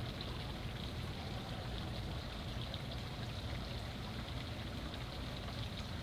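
Steady outdoor ambience: an even hiss over a low rumble, with no distinct events.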